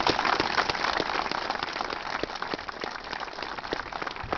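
Crowd applauding: a dense patter of clapping, loudest at first and slowly thinning out.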